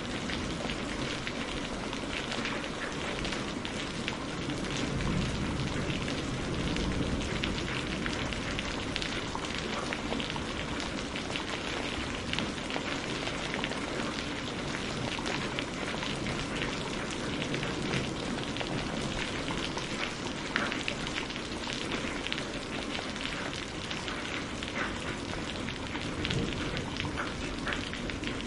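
Steady rain falling on a surface, with many single drops pattering sharply over a low rumble.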